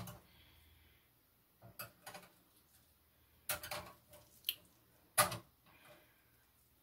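Metal kitchen tongs clinking and scraping against a wire cooking rack as chicken thighs are turned over: several short, sharp clinks spaced a second or so apart.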